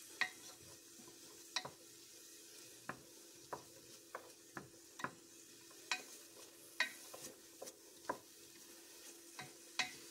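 Wooden spoon stirring chopped onion and garlic sautéing in olive oil in a stainless steel pot: irregular light taps and scrapes of the spoon against the pot, about one a second, over a faint steady sizzle.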